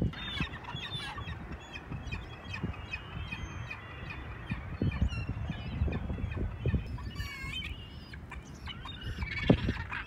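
Gulls calling, many short overlapping cries, with clusters of calls in the first second, about seven seconds in and again near the end.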